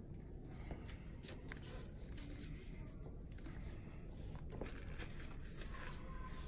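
Quiet room tone with a steady low hum, broken by faint scattered rustles and light taps, like paper and small objects handled on a table.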